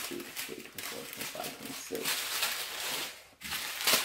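Small plastic bags of diamond-painting drills crinkling and rustling as they are handled, loudest from about two seconds in. Faint low vocal sounds, like a pet's, come in the first half.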